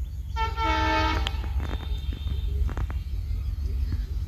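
Locomotive horn sounding once, a chord of several pitches lasting about a second, then a fainter tone and a few sharp clicks, over a steady low rumble.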